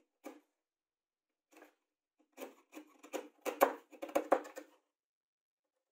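Steel wood chisel pushed by hand, paring end grain and shavings from a pocket in plywood: short scraping cuts, a couple of single strokes and then a quick run of them about two and a half to five seconds in, with a few dull knocks among them.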